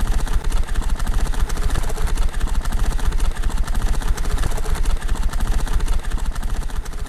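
A steady, rapid mechanical clatter over a low rumble.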